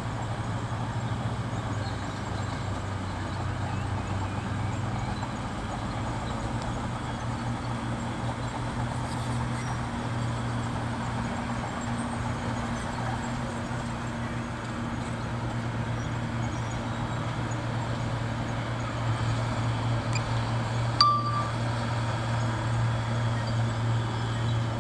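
Bulldozer's diesel engine running steadily at a constant low drone, a little louder in the last few seconds. About three-quarters of the way through there is a single sharp click with a brief high beep.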